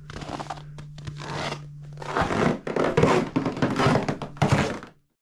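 Irregular rustling, scraping and knocking of close handling noise over a steady low hum, louder from about two seconds in, then cutting off abruptly.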